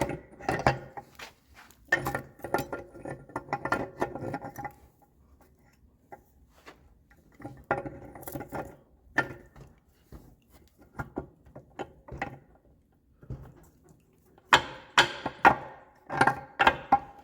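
Irregular metallic taps, clicks and ringing clinks of tools working seized tappets out of a rusty Kohler K321 engine block, with a run of sharper, louder knocks near the end.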